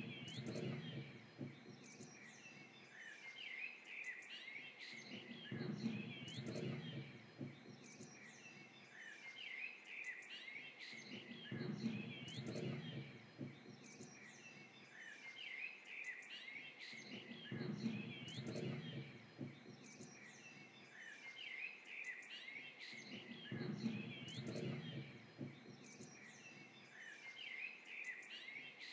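Songbirds chirping and trilling continuously over a faint outdoor background. A low swell of noise rises and falls about every six seconds.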